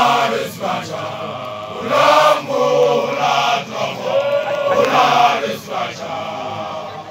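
A group of men's voices chanting together in repeated sung phrases.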